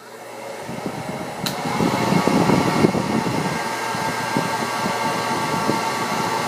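Hand-held hair dryer running and blowing air at a fidget spinner. It builds over the first two seconds, then holds steady.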